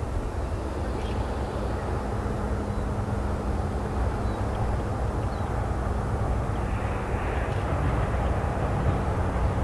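GE diesel locomotives of a freight train approaching from a distance: a steady low rumble with a constant hum, slowly growing louder.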